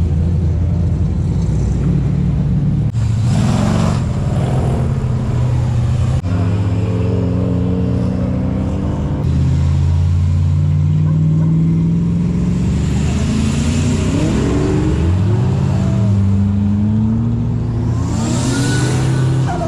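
Classic cars' engines running as the cars pull out, idling and revving, with several rising and falling rev blips past the middle and a harder burst of acceleration near the end. The sound breaks off sharply a few times where one car gives way to the next.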